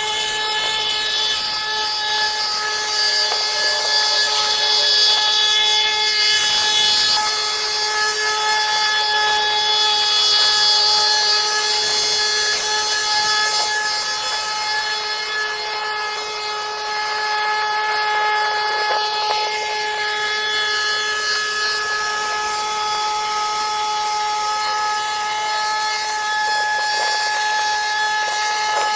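A motorised power tool running steadily at a constant high pitch, with no change in speed.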